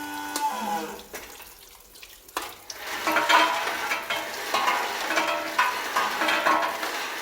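Ginkgo nut sorting machine: a steady motor hum cuts off about half a second in and winds down. After a brief lull, from about three seconds in, a busy clattering rattle with a wet, sizzle-like hiss, as of nuts tumbling through the machine.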